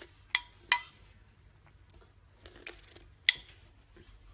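Metal spoon clinking against a ceramic bowl: two sharp ringing taps close together about half a second in, a few softer taps, then one more sharp clink a little past three seconds.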